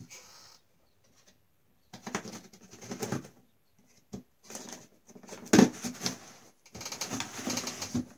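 Utility knife slitting the packing tape on a cardboard box, then the cardboard flaps pulled open with rustling and scraping, in uneven bursts. One sharp knock stands out about five and a half seconds in.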